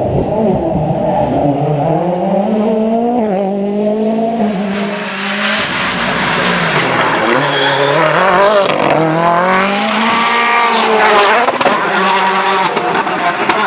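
Rally car engine at high revs, its pitch climbing and falling several times as the driver works through the gears and lifts off.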